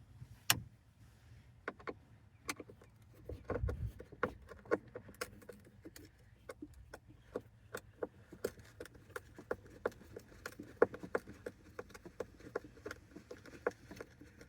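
Screwdriver working screws out of a 2012 Honda Civic's plastic dashboard trim: a run of small, irregular clicks and taps that come faster after about six seconds.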